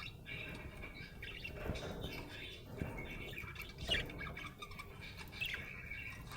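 Budgerigar chattering and chirping: a continual run of short warbling notes, with a sharper squawk about four seconds in.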